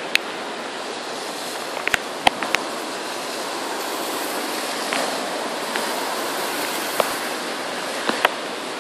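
Steady downpour of rain during a thunderstorm, a continuous even hiss, with a handful of short sharp ticks scattered through it.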